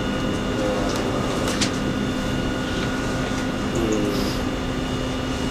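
Steady room hum from a fan, with a few fixed steady tones running through it.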